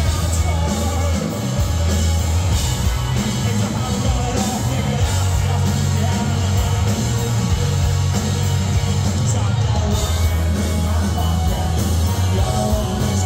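Live rock band playing loudly through a PA, with electric guitars, drums, heavy bass and singing, heard from within the crowd.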